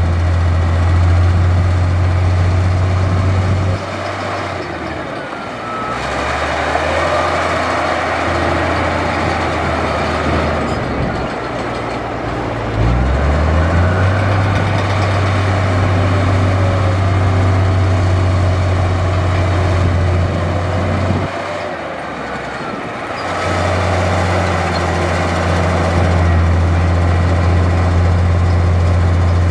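Heavy diesel engine of earthmoving machinery running steadily. Its level dips twice for a couple of seconds and its pitch rises about halfway through, with wavering higher-pitched whines above it.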